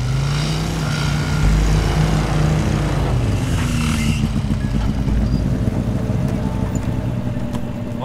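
Several small motorcycles riding in and pulling up, their engines running with a pitch that rises and falls.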